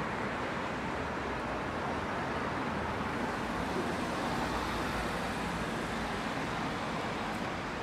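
Steady city road traffic: cars running past on a street, with no single vehicle standing out.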